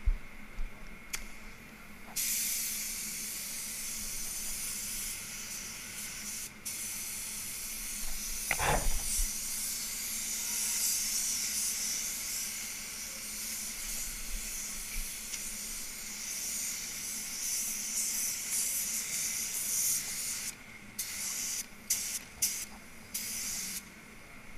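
Compressed-air paint spray gun spraying a coat of paint: a steady hiss that starts about two seconds in and breaks off once briefly, then a few short trigger bursts near the end. A brief swish about nine seconds in is the loudest moment.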